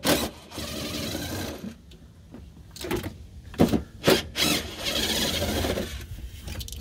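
Cordless drill-driver running in short bursts as it backs out bumper fasteners: two steady runs of about a second each, one near the start and one about two-thirds of the way through, with brief blips and clicks between them.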